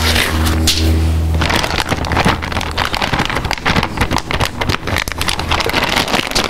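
Thin plastic crinkling and rustling in dense quick crackles, as a zip-top bag of marinade is handled and nitrile gloves are pulled off. A low steady hum runs under the first two seconds.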